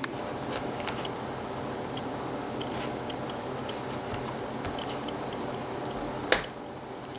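Handling noise from a laptop LCD panel and its ribbon cable being lifted and laid down: scattered small clicks and taps of plastic and metal, with one sharper click about six seconds in, over a faint steady hum.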